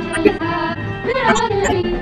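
Japanese anime theme song sung by a woman, with instrumental backing.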